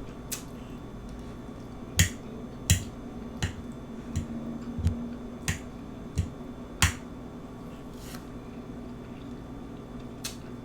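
Close-miked eating: chewing with sharp, wet mouth clicks and smacks, about ten of them at an uneven pace of roughly one every two-thirds of a second, the loudest about two seconds in.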